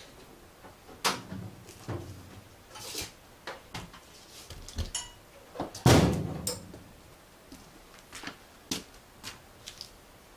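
Irregular clatter and knocks of tools and metal parts being handled while rummaging for wire wheels, with one heavier thud about six seconds in.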